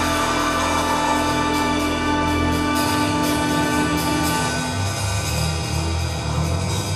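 Chamber orchestra with strings, brass and drum kit playing a film score live: long held chords with a steady pulse of light percussion strokes on top, and the bass line changes to a new pattern about three seconds in.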